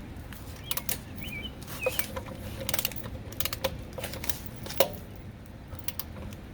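Irregular metallic clicks and knocks of a ratcheting torque wrench being worked to tighten a lug nut, some with a short ring.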